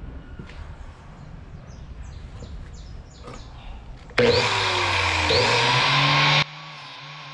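Angle grinder clamped in a vise, running loudly as the steel knife blade is ground on its disc. It starts suddenly about four seconds in and cuts off abruptly about two seconds later. Before it there are soft handling clicks, and after it background music.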